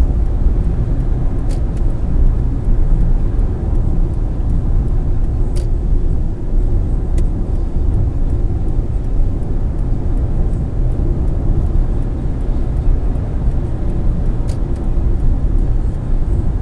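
Car driving at highway speed, around 100 km/h, heard from inside the cabin: a steady low rumble of tyre, road and engine noise, with a few faint clicks.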